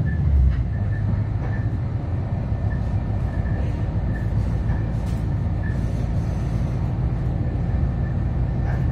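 Steady running rumble of an Adelaide Metro 3000-class diesel railcar in motion, heard inside the passenger cabin, with the low hum of its underfloor diesel engine and a couple of faint clicks.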